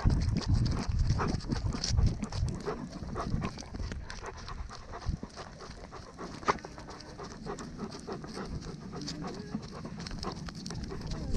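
A dog panting, mixed with knocks and rustles of movement; louder and busier in the first few seconds, then quieter.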